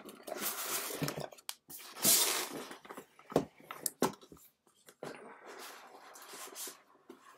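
A metal-trimmed cardboard subscription box being handled, its lid shut: rustling and scraping with several sharp clicks and knocks.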